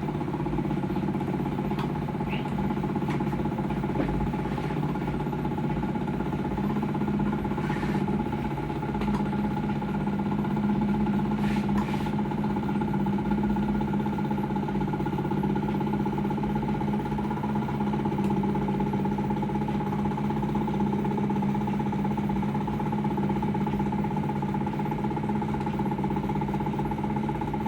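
Electric drive of a microwave tomograph prototype's scanning arm running steadily as the arm travels back through the water, a low hum with a higher whine over it and a couple of faint clicks.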